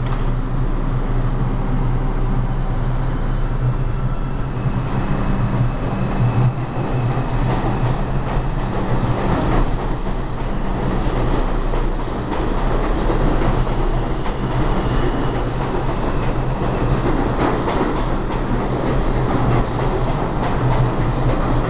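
R142 New York City subway train moving past along the platform: a steady rumble and motor hum, with the wheels clacking over rail joints.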